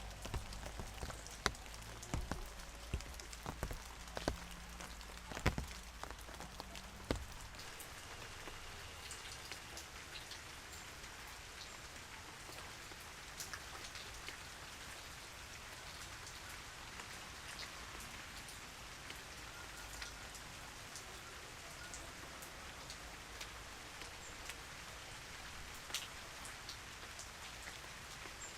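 Steady rain falling, with individual drops ticking and pattering. For the first seven seconds or so there are louder, closer drips and a low rumble underneath; after that the rain goes on evenly.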